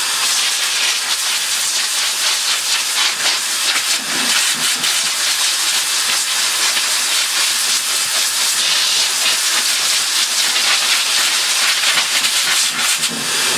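Steady hiss of a compressed-air line blowing dust out of a Dyson V6 vacuum's filter, wavering now and then as the jet moves over it.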